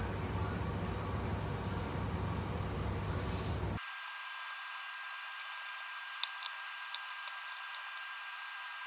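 Steady hiss of breaded potato nuggets frying in hot oil in a steel pan, with a few sharp pops of spattering oil. A low rumble under the hiss stops abruptly about four seconds in.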